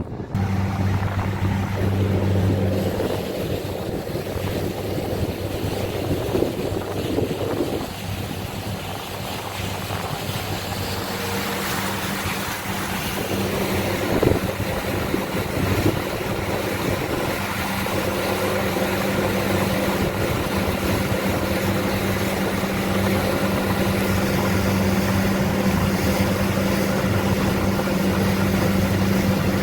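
Motorboat engine running with a steady hum, with wind and water rushing past. The rushing grows louder from about halfway through as the boat gathers speed.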